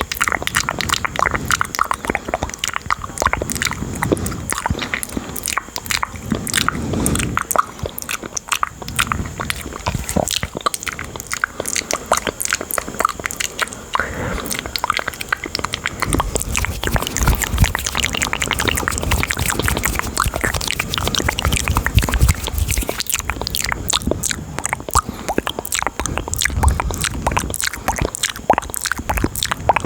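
Close-miked ASMR mouth and hand sounds: a dense run of quick clicks and pops, with a low rubbing added from about halfway.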